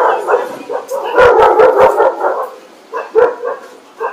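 A dog barking loudly: a bark at the start, a rapid run of barks about a second in, then more spaced-out barks near the end.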